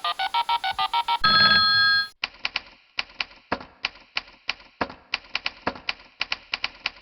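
Manual typewriter sound effect: a quick run of key strikes, a bell ding about a second in, then irregular key clicks for the rest.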